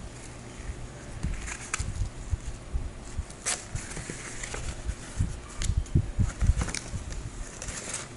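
Packaging being handled and unwrapped: scattered crinkles and rustles with dull low bumps, irregular throughout.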